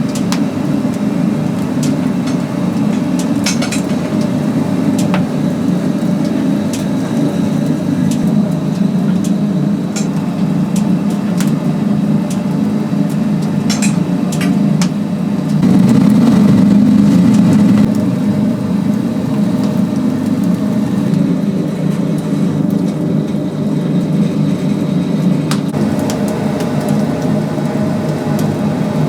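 Oak-wood-fired rotisserie chicken oven running: a steady low rumble of fire and machinery with scattered crackles and clicks, swelling louder for about two seconds midway.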